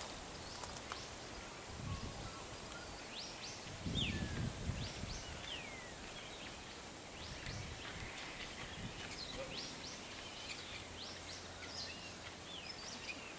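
A scatter of bird-like chirps and short falling whistles, many scattered calls overlapping, with a couple of low rumbling bumps.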